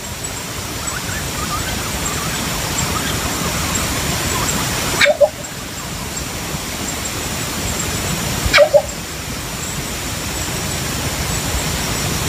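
Philippine coucal calling: short, loud, low double notes, twice, about five and eight and a half seconds in, over a steady hiss of background noise with a thin high steady tone.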